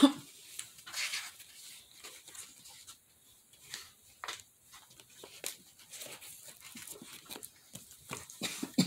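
Quiet handling sounds from hot-gluing a small craft piece onto a cardboard tissue-box model: scattered light clicks and taps from the glue gun and fingers, with a few short rustles, the loudest near the end as the piece is pressed on.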